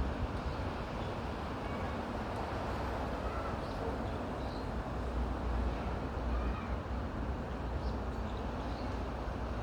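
Forest wind rushing through the trees and buffeting the microphone as a steady low rumble, with a few faint, short bird chirps scattered through it.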